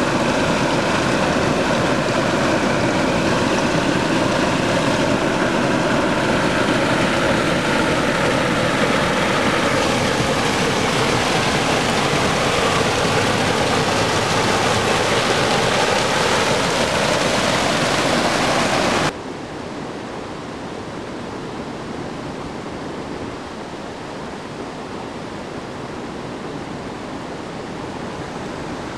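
Loud steady rushing of water, with faint tones slowly sliding up and down through it, cutting off suddenly about 19 seconds in to a quieter, even rush.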